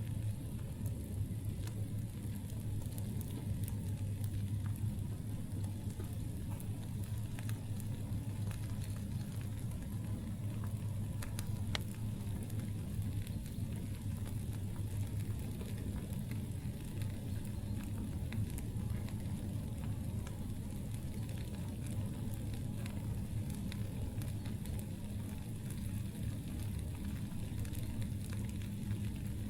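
Campfire crackling steadily with scattered sharp pops and snaps of burning wood, over a steady low hum.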